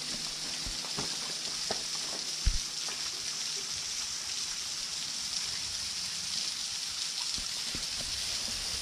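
Water from a natural spring waterfall running steadily, with a single thump about two and a half seconds in.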